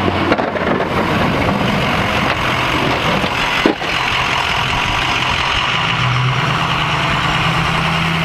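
Ford plow truck running as it drives past pushing snow, with its plow blade scraping through the snow on the pavement. A sharp click comes about three and a half seconds in, and a steadier low engine note comes in about six seconds in.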